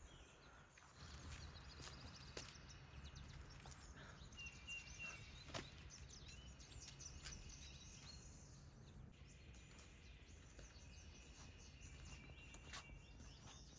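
Near silence outdoors: faint bird chirps and calls, with a couple of held high notes, over a faint low rumble, plus a few light clicks.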